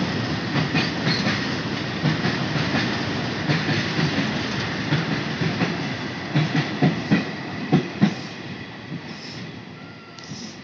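A freight train's covered goods wagons rolling past, wheels clattering over the rail joints with a steady rumble. A run of sharp knocks comes about eight seconds in, then the sound fades as the brake van at the tail goes by.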